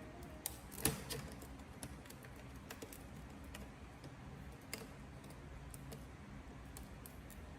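Faint, irregular light clicks and taps of small hard parts being handled, over a low steady hum; the loudest click comes about a second in.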